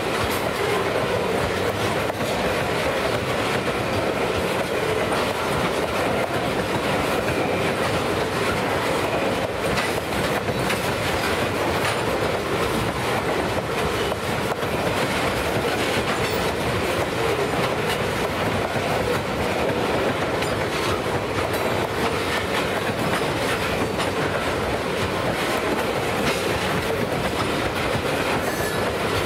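Freight train cars rolling past steadily, steel wheels on rail, with light clicks from the wheels running over the track.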